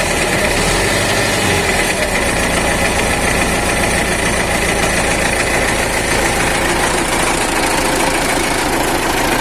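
MTZ-80 tractor's four-cylinder diesel engine running steadily, with a light knock that the owner traces to the intermediate support between clutch and gearbox rather than the engine. He wonders whether a newly fitted shaft there is still bedding in.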